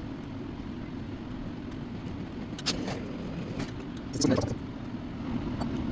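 Steady low rumble, with a few light clicks and knocks around the middle.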